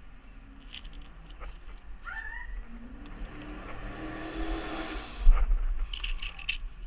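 An animal's cry: a short rising call about two seconds in, then a longer drawn-out call, with a single loud thump just after five seconds.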